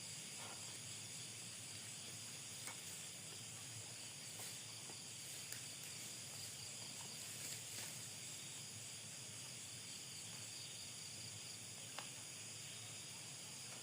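Steady high-pitched chorus of night insects, with a few faint clicks now and then.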